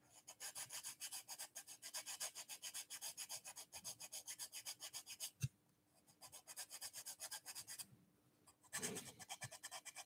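Small diamond needle file rasping back and forth in a slot in thin wood, widening a tight slot. It goes in quick, even strokes, about five a second, in two main runs with a pause between them, and there is one sharp click about five and a half seconds in.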